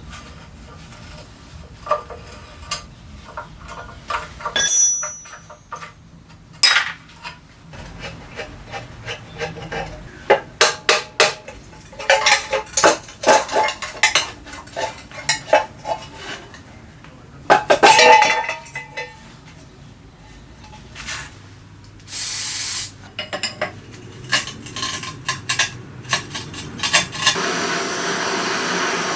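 Metal parts and hand tools clinking and knocking irregularly on a rusty bench grinder as it is worked on, with a short hiss about three-quarters of the way through and a steady rushing noise starting near the end.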